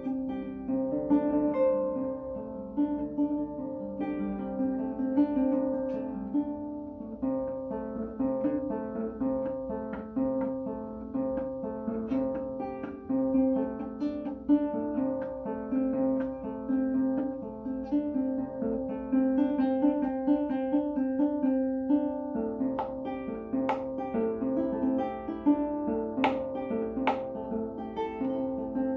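Ngoni, a West African plucked lute, played solo: a steady stream of plucked notes that cycle through a repeating melodic pattern, with a few sharper, brighter plucks near the end.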